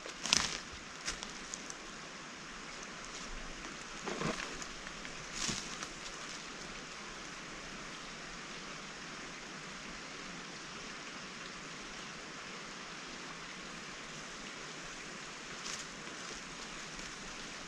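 A steady, even hiss with a handful of short knocks or taps, several in the first six seconds and one near the end.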